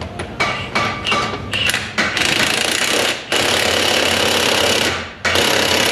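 Cordless impact wrench with a 1-inch socket hammering on the Pitman arm nut of a removed steering box. It gives several short blips, then a run of about three seconds, stops briefly, and starts again near the end.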